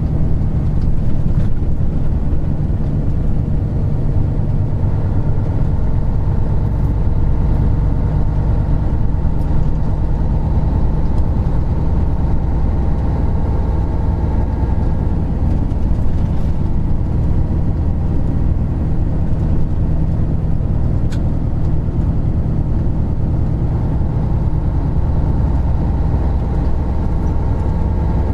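Isuzu Gala III coach with its 12PE1 V12 diesel, heard from inside the bus while driving along at a steady pace: a constant low engine drone with a faint whine above it.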